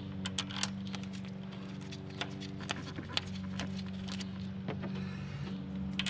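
Scattered small metallic clicks and taps as a clutch slave cylinder and its mounting bolts are fitted by hand to the transmission, over a steady low hum.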